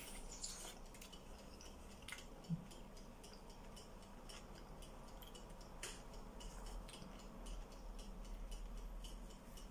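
Faint mouth sounds of a person chewing a bite of pastry bake, with scattered small clicks and one sharper click about two and a half seconds in.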